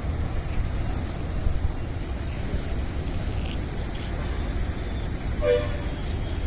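Steady low rumble with one short vehicle horn toot near the end.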